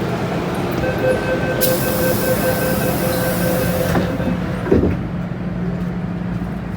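Metro-Cammell electric multiple unit train of Hong Kong's MTR standing at a station: a steady, faintly pulsing warning tone with a hiss for about three seconds, then a single thump, then the train's steady hum.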